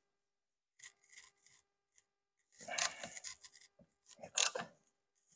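Wrench straining on a tight bolt on a brake caliper: a few short rasping, grinding scrapes of metal on metal, the loudest about four seconds in as the bolt breaks loose.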